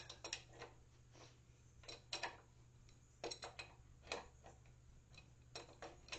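Wrench clicking in short, irregular runs of sharp ticks as it is worked against a very tight hydraulic fitting.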